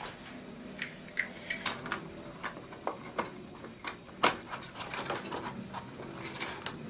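Light plastic clicks and taps as a stopper strip is handled and pushed into its slot in a plastic baby walker base, with one sharper click about four seconds in.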